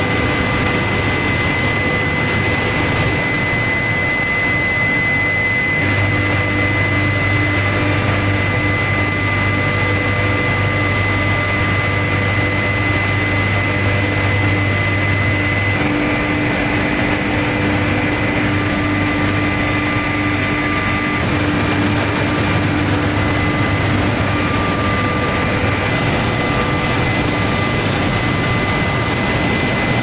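Induction heat treatment line for steel pipe running: a steady, loud machinery hiss with constant whining tones, the strongest one high-pitched. A low hum grows stronger about six seconds in and eases off near the middle.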